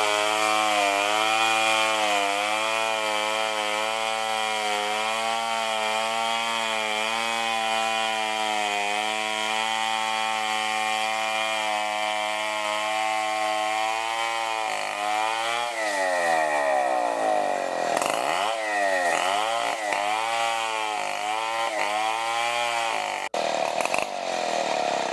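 Large chainsaw running under load as it rips a log lengthwise into lumber. The engine holds a steady note for about fifteen seconds, then drops and climbs in pitch again and again as the throttle is eased and opened.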